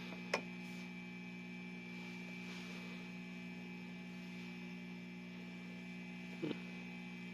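A steady electrical hum that comes on just before, with a sharp click about a third of a second in and a short knock near the end.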